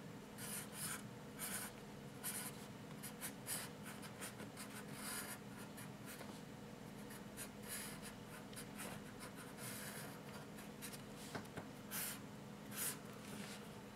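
Palomino Blackwing 811 graphite pencil scratching faintly on paper in many short strokes as numerals are drawn and outlined.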